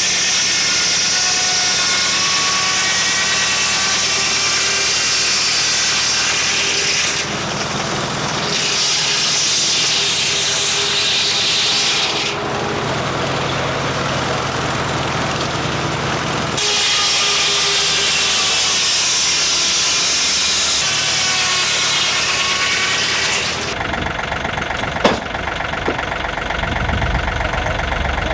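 Frick circular sawmill blade cutting through red oak over the steady run of the mill's engine, a high whining hiss under load. Between cuts the hiss drops away and only the engine and the spinning blade remain, with a single sharp knock near the end.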